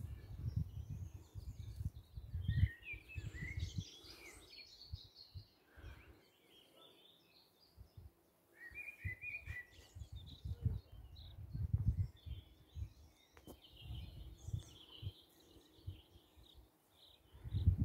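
Small birds chirping in scattered high bursts, over intermittent low rumbling.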